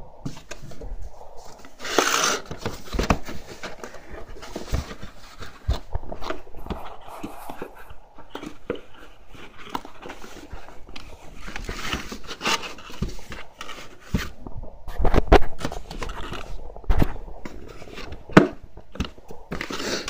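Cardboard box being handled and pried at: flaps and inner partitions scraping, rubbing and knocking in irregular bursts, loudest about two seconds in and again around fifteen seconds. The box's cardboard handle is caught and is being worked free.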